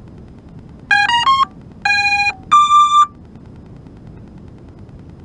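Racing quadcopter's ESCs sounding their startup tones through the motors: three short rising beeps, then a longer low beep and a longer higher beep. This is the power-up and armed-signal sequence that tells the pilot the speed controllers are ready. A steady background rush runs underneath.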